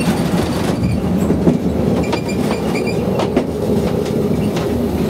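Double-monocable gondola cabin running through its station, heard from inside the cabin: a steady rumble with a series of sharp clacks and knocks and short high squeaks from the cabin's carriage and the station's guide and drive machinery.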